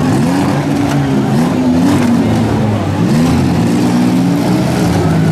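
Several six-cylinder demolition derby car engines running and revving at once, their pitches rising and falling and overlapping as the cars manoeuvre.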